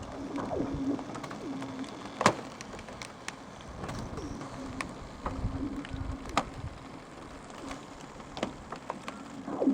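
Freezing lake ice cracking and singing: sharp pings and cracks, the loudest about two seconds in, with zipping whistles that fall in pitch and a low hum that comes and goes.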